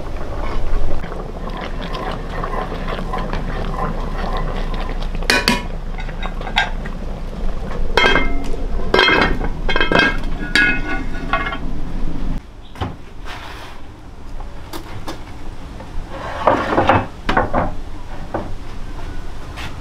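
Dishes and utensils clinking and knocking in irregular bursts, several strikes with a short metallic ring. They are busiest in the middle, with another cluster near the end.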